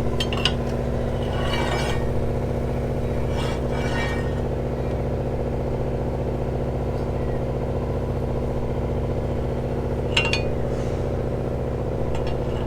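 Steady hum of an engine running aboard the boat, with a few sharp metallic clinks, about half a second in and again about ten seconds in, from work on the rigging turnbuckles.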